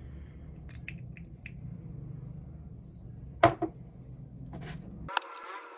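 Small clicks and knocks of makeup containers and tools being handled, over a steady low room hum. The loudest is a sharp double click about three and a half seconds in. The hum cuts off abruptly near the end.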